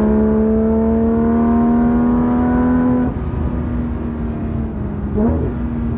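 Porsche 991.2 GT3 RS's naturally aspirated flat-six pulling under throttle, revs climbing steadily. About halfway through the throttle eases off and the engine runs quieter at steady revs, then gives a short rise in revs near the end.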